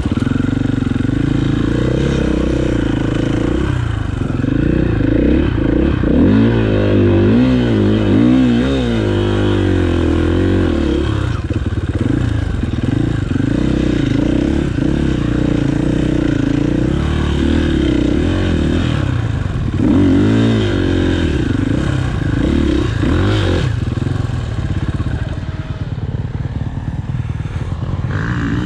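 Enduro motorcycle engine running off-road, its revs rising and falling as the throttle is worked. It revs hardest about six to nine seconds in and again around twenty seconds.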